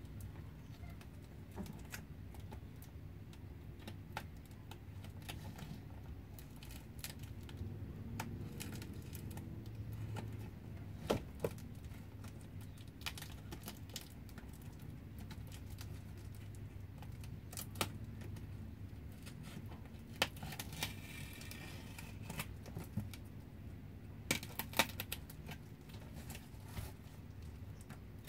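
A plastic courier mailer wrapped in packing tape being cut and pulled open by hand: scattered sharp clicks and plastic crinkles from the tape, cutter and wrapping, over a steady low hum.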